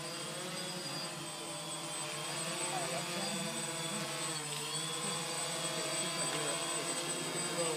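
DJI Phantom quadcopter's electric motors and propellers whirring as it comes down and hovers close by. The whine shifts up and down in pitch as the motors adjust, and grows gradually louder as the drone nears.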